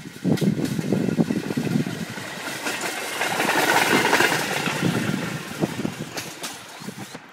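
Pedal-powered rail carts (vélorail) rolling along the track: a rattling clatter of steel wheels on the rails with many sharp clicks. It swells to its loudest about halfway through, then fades and cuts off suddenly near the end.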